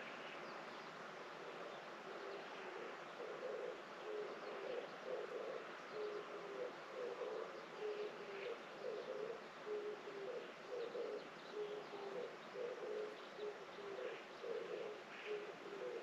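A dove cooing, a low call repeated in short phrases over and over from about two seconds in, with a few faint higher bird chirps now and then.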